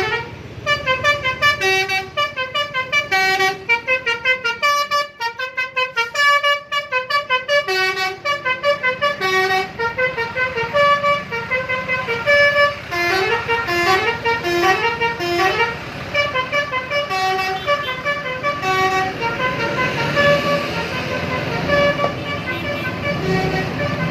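Telolet bus horn, the multi-tone musical horn of an Indonesian bus, playing a tune of short tooting notes at several pitches in quick runs, over and over. A rushing noise swells in underneath near the end.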